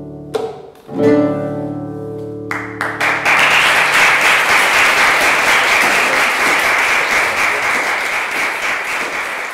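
Classical nylon-string guitar closing a piece: a short stroke, then a final chord about a second in that rings on. About two and a half seconds in, the audience breaks into applause that keeps going.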